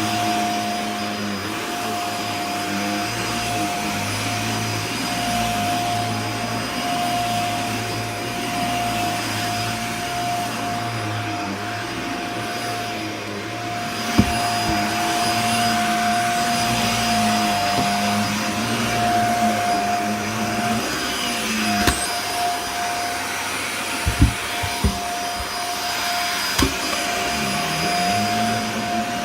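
Dyson Small Ball Multifloor upright vacuum cleaner running steadily with a constant whine. A few short knocks and clicks come in the second half.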